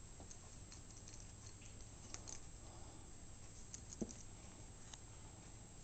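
Faint, scattered light clicks and scratches from a small pet moving about, over a low steady room hum.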